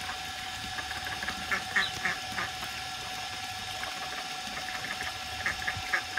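Domestic duck and her ducklings calling: short quacks and peeps in quick clusters, one about one and a half to two and a half seconds in and another near the end, over a steady hum.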